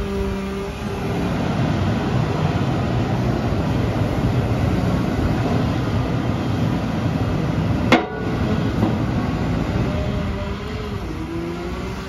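Cat MH3022 material handler's engine running under hydraulic load as the boom lifts and the selector grab rotates, a steady heavy rumble with a wavering whine. A single sharp knock about eight seconds in.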